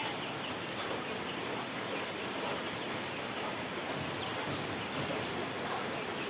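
Rain and wind in a storm: a steady, even hiss with no let-up.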